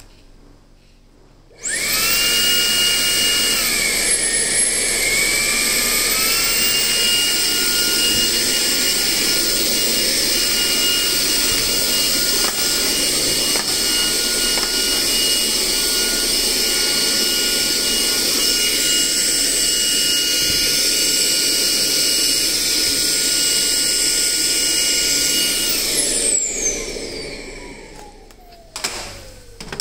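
Makita CL003G 40V max cordless stick vacuum switched on, its motor running with a steady high whine and rush of air. The pitch dips briefly a few seconds in and climbs back to hold steady. Near the end it is switched off and the whine falls as the motor spins down.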